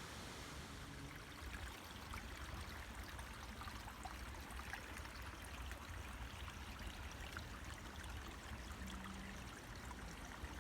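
A small brook running steadily, faint and even, swollen a little above its normal level after recent rain. A low rumble sits underneath.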